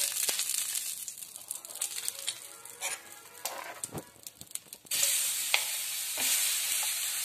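Oil sizzling on a hot griddle (tawa) as it is spread around, dying down to a low hiss with a few scraping clicks. About five seconds in, a loud sizzle starts suddenly as gram-flour batter is poured onto the hot pan.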